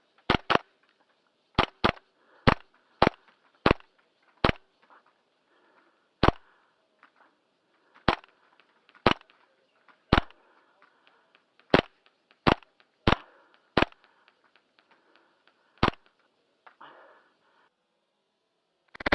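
Airsoft gun firing about seventeen single sharp shots at uneven intervals, one at a time, with a quick double near the start.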